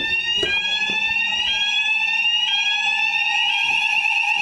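Electronic fire alarm sounders going off during a weekly alarm test. A tone sweeps upward and restarts about once a second over a steady lower tone, and the sweeping tone settles into a steady sound near the end.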